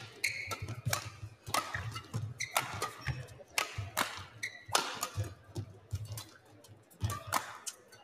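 Badminton rally: racket strings crack against the shuttlecock about once a second as the players trade shots, with short squeaks of court shoes in between and a brief lull near the end.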